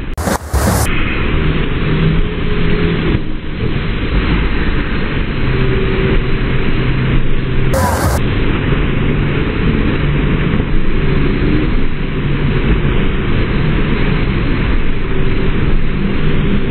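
Steady rushing of the artificial standing wave's water, heavy in the low end, with brief changes in the sound about half a second in and again around eight seconds in.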